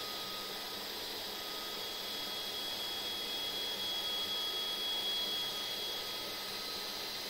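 TOYDIY 4-in-1 FDM 3D printer running at the start of a print, as it auto-homes and begins. A steady whir carries several thin high-pitched whines, and the highest whine stops about six seconds in.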